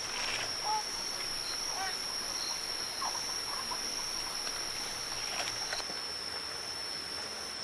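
A steady, high-pitched insect chorus, with a few faint short chirps and clicks over it.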